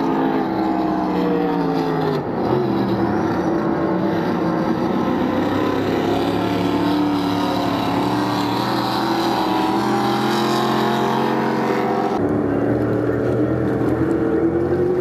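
Supercharged, alcohol-fuelled displacement race boat engines running hard as several boats race past. Their pitch falls in the first couple of seconds and rises again near the end, with sudden changes in the sound about two and twelve seconds in.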